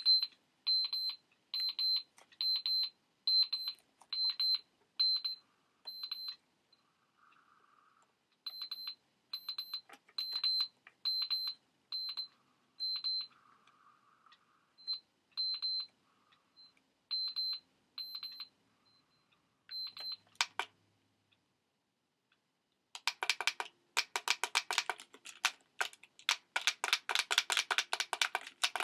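Electronic alarm clock giving short high beeps or ticks about two a second, in runs with short gaps. About 23 seconds in, a louder, much faster pulsing sound starts.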